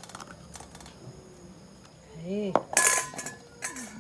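A metal spoon clinking against a ceramic plate, with scattered light knocks. The loudest clink comes about three seconds in and rings briefly.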